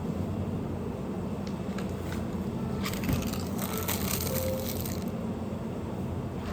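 A steady low hum throughout, with a few light clicks and a dense crackling rustle lasting about two seconds near the middle.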